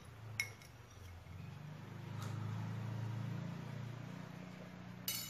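A passing motor vehicle's engine: a low hum that swells over a couple of seconds and then fades. A spoon clinks once against the glass mug just under half a second in, and there is a sharp clink near the end.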